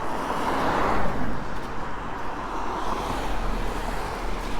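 Traffic passing on a wet, slushy street: tyres hissing on the wet pavement, loudest as a car goes by about a second in, over a steady low rumble.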